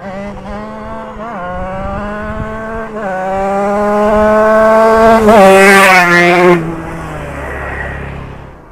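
Yamaha RX-King 135 cc two-stroke single, fitted with a YZ magneto, accelerating hard toward the listener and shifting up about three times, its pitch climbing between shifts. It passes close about two-thirds of the way in, the pitch dropping sharply, then fades away.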